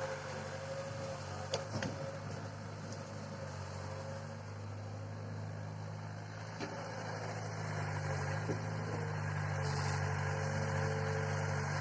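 Engine of heavy machinery running steadily, with a few sharp clicks or knocks over it.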